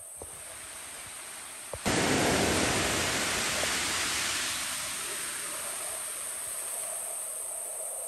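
Rushing river water comes in suddenly about two seconds in. It is loudest at first and eases slightly after a few seconds, with insects chirping steadily underneath.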